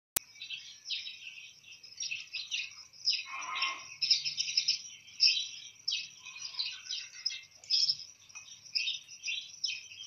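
Small birds chirping and twittering, a quick, unbroken run of short high chirps that overlap one another.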